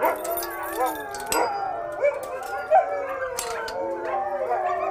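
A pack of wolves and wolf dogs howling together in a chorus: several long, drawn-out howls overlap at different pitches, gliding slowly up and down.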